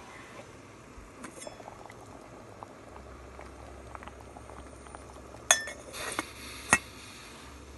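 Liquid boiling hard in a stainless steel pot on a camping gas stove, with a crackling bubble. The pot's metal lid clinks sharply twice as it is set back on, about five and a half seconds in and again near the end.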